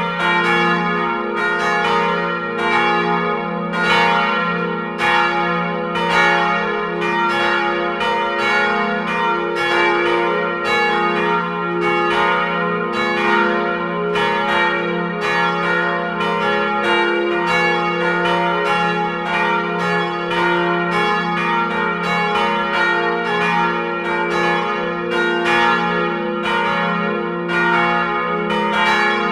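Several swinging church bells ringing together in a full peal, their strokes overlapping in a steady, uneven stream of about two strikes a second, each tone ringing on under the next.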